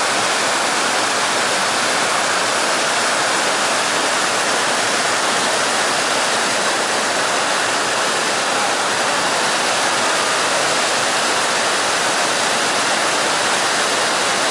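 Flowing stream water rushing steadily and evenly.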